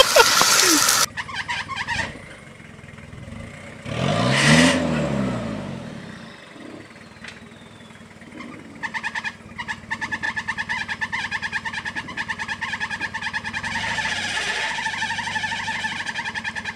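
Off-road vehicles' engines. In the first second a pickup runs hard with its tyres spinning and spraying mud, then the sound cuts off. About four seconds in, an engine revs up and drops back. From about nine seconds a Toyota 4x4's engine runs with a steady, rapid pulsing as it crawls over rocks.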